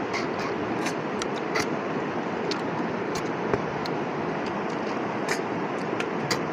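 Steady rush of a flowing river, with scattered short clicks as cooked river snails are picked out of a metal pot and eaten.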